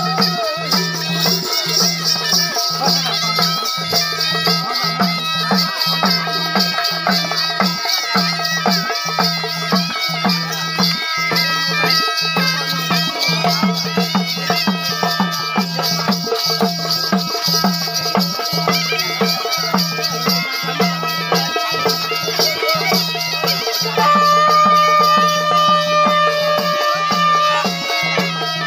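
Traditional folk music: a steady droning low note broken by a regular beat, with held melody notes over it and a rattling hiss high up. A louder held melody note comes in near the end.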